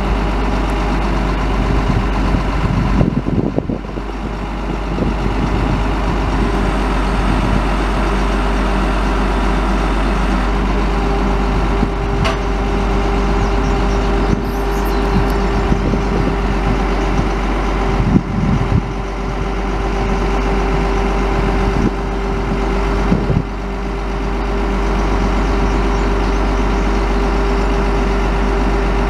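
Diesel engine running steadily. About ten seconds in, a steady whine joins it, and a few short clunks come through.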